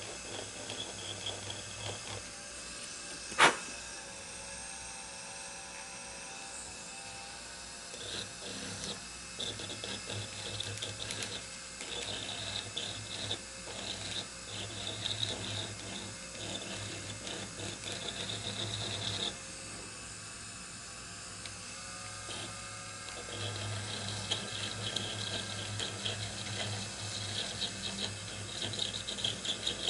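Rotary tool with a pointed high-speed steel cutter running while texturing grafted briar wood, the cutter chattering against the wood in stretches as it is worked over the surface. A single sharp click about three seconds in.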